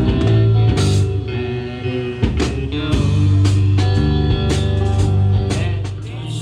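Band playing blues-rock with guitar and drum kit over held low bass notes, instrumental with no singing.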